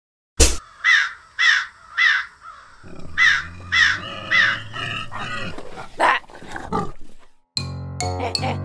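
A crow-like bird cawing in two runs of three short calls, each call falling slightly in pitch, after a sharp click; a couple of sharp hits follow, and music comes in near the end.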